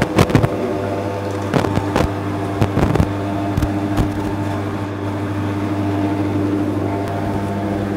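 Maksindo MKS-0.5 electric coconut-milk and fruit press (2200 W) running steadily while pressing grated coconut: a low motor hum with a few steady tones above it, and scattered light clicks and knocks.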